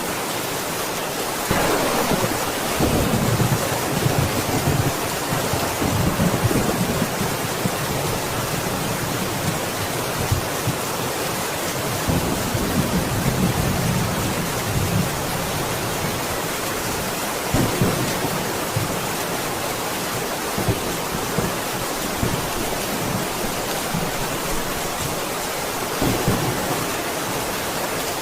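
Steady heavy rain with rolls of thunder: a sharp crack about a second and a half in runs into a rumbling roll over the next few seconds, with further low rumbles later.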